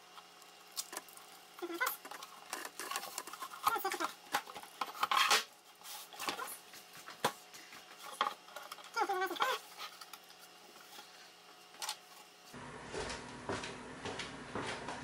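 Hands tidying the cables and parts on a wooden prototype board: scattered clicks, taps and rustles of handling, with two short zipping rasps about four and nine seconds in.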